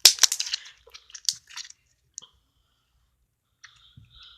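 Homemade glittery slime being squished and poked by hand, giving a quick run of wet crackling clicks and pops for about a second and a half, then a few scattered pops.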